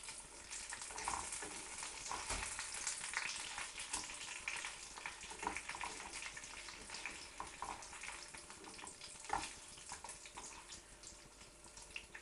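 Battered corned beef fritters frying in hot oil in a pan: steady sizzling with frequent crackles of spitting fat. Now and then a slotted spatula knocks against the pan as the fritters are turned over.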